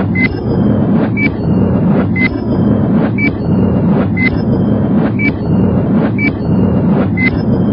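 Countdown timer sound effect: a short high beep with a click every second, one per number, alternating slightly between two pitches, over a steady low hum.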